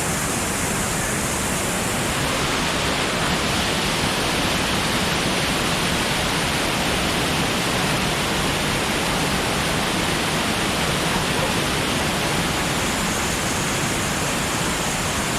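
Meigs Creek Cascade, a small waterfall, rushing steadily: a constant, even wash of falling water.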